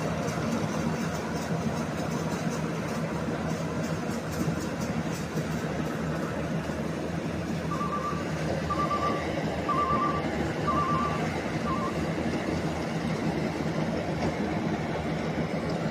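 Small rice combine harvester's engine running steadily under load. Near the middle come five short, even beeps about one a second, typical of its reversing alarm.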